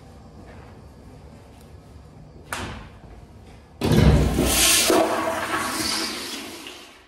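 Toilet flushing: a sudden loud rush of water begins a little under four seconds in and slowly dies away near the end. A brief knock comes just over a second before the rush.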